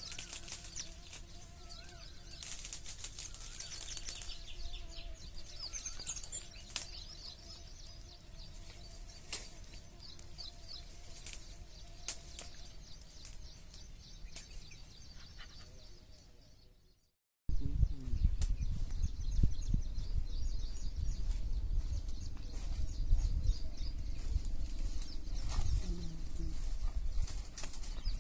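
Small birds chirping repeatedly in the open air over a faint steady background. About two-thirds of the way through, after a brief break, a louder uneven low rumble comes in under the chirps.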